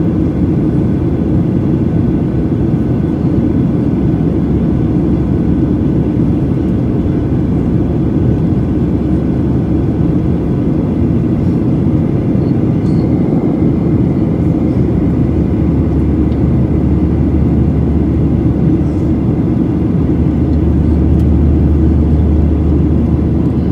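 Cabin noise inside a Boeing 737-800 in flight, heard from a window seat over the right wing: a steady rush of its CFM56-7B engines and the air streaming past the fuselage. A deeper hum grows stronger in the last third.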